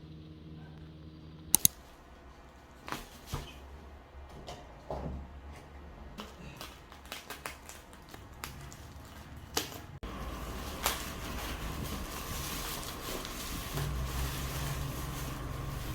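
Irregular clicks and taps from handling the Royal Kludge RK61 keyboard and its box during unboxing, with two sharp clicks about one and a half seconds in. At about ten seconds the sound changes abruptly to a steady hiss with a faint steady tone.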